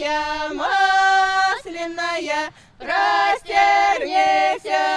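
Singing: voices hold long, steady notes phrase by phrase, with short breaks between them and a brief pause a little past the middle.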